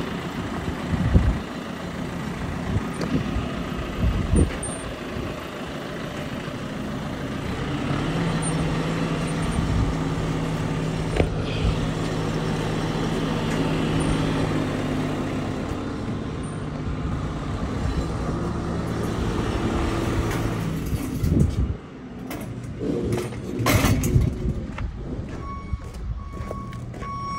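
Diesel engine of a JCB telehandler running while its boom holds a heavy glass panel on straps. The engine revs up about eight seconds in, holds, and settles back about thirteen seconds later, with a few sharp knocks along the way. Reversing beeps start near the end.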